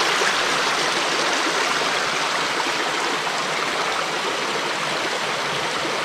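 Small mountain creek running over rocks and little cascades: a steady, even rush of water.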